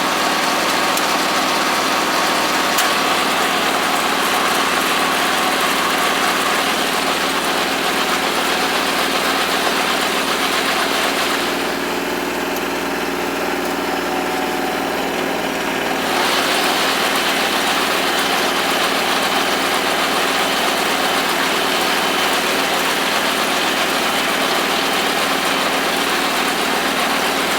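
Kubota L3200 compact tractor's diesel engine running steadily, driving a Farm Maxx mini round baler while baling hay. The higher hiss eases for a few seconds about halfway through.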